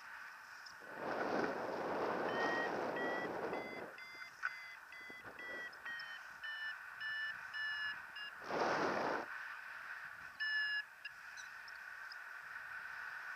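Paragliding variometer beeping in short pulses, about two a second, with one longer beep near the end: its climb tone, signalling that the glider is in lift. Wind rushes over the microphone in gusts about a second in and again past the middle.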